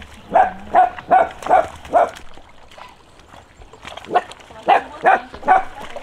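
A dog barking in two runs of quick barks, five and then four, with a short pause between.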